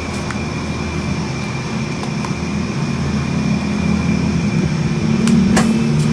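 Steady low mechanical hum, with a few sharp clicks about five seconds in.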